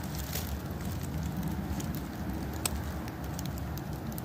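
Woodland ambience: a steady low rumble with a few scattered ticks and crackles of dry fallen leaves, one sharper tick near the middle.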